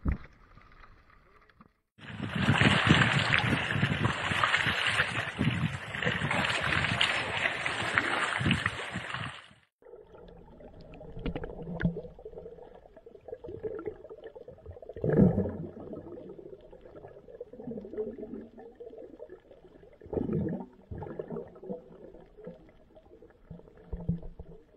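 Water sounds: several seconds of loud, dense rushing and splashing that cut off suddenly, then quieter gurgling with irregular soft knocks.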